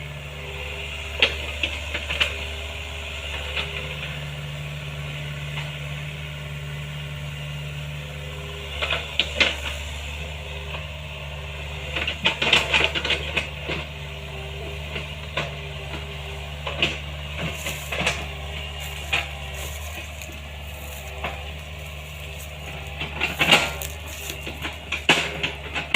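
Small Hitachi excavator's diesel engine running steadily, with scattered clanks and knocks from the machine at work, in clusters around the middle and near the end.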